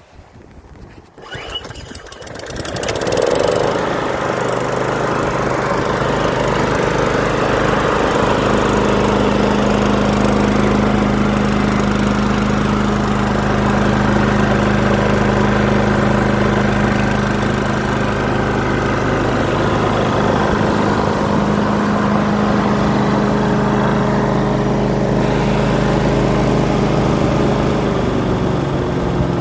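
Subaru EA190V single-cylinder four-stroke engine on a Ryobi 190cc lawn mower starting about a second in, then running steadily at a constant speed. Near the end the engine note drops as the throttle lever on the handle is eased back.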